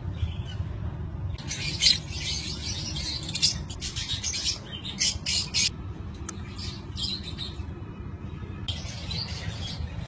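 Young lovebirds in a nest box giving harsh, raspy squawks in a run of short bursts, about seven in all, with brief pauses between.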